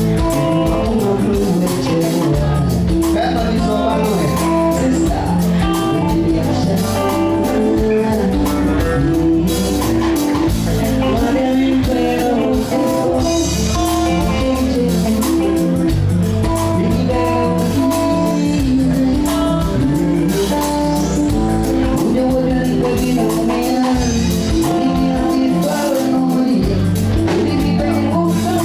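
A band playing music with singing, guitar and a steady bass and percussion beat.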